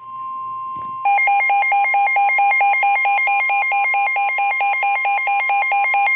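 Emergency Alert System alert tone for a Special Marine Warning: a steady electronic beep, joined about a second in by a much louder warbling alarm tone that switches rapidly between pitches several times a second.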